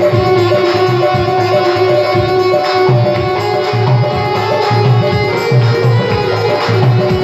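Devotional bhajan music played on instruments: a harmonium and keyboard melody of held notes over a steady hand-drum beat.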